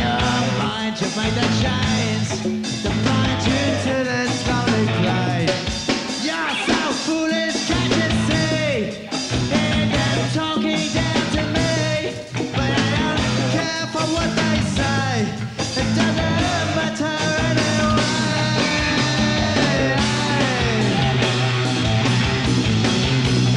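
Rock band playing live: drums, bass, electric guitar and synths, with a steady bass line underneath and a voice singing at times.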